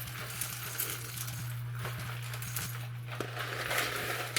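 Whole coffee beans being poured into the bean hopper of a Ninja Luxe Café Pro espresso machine: a dense rattle of many small clicks. A steady low hum runs underneath.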